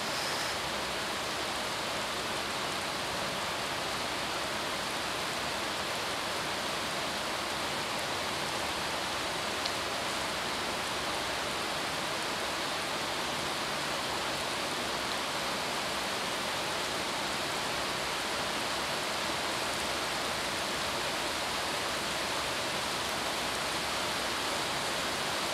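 A steady, even hiss of background noise with no speech, unchanged throughout; a single faint click about ten seconds in.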